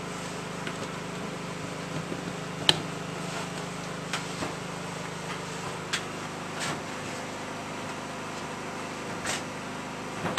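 Steady mechanical hum, with a few light knocks and clinks as an urn and its lid are handled on a steel table; the sharpest clink comes a little under a third of the way in.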